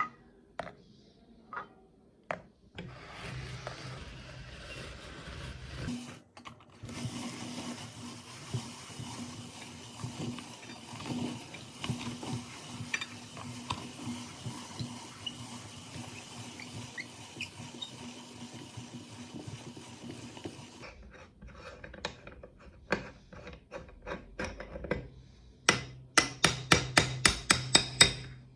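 Meat grinder running and grinding, a steady motor hum under a grating noise that goes on for about fifteen seconds and then stops. Scattered clicks follow, then a quick run of sharp, loud clicks near the end.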